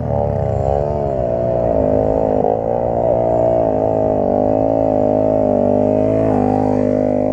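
Motorcycle engine running at fairly steady revs, the pitch wavering up and down slightly with the throttle.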